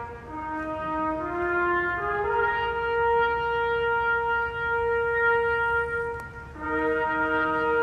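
Brass music playing slow, long held chords. The notes break off briefly about six and a half seconds in, then a new chord begins.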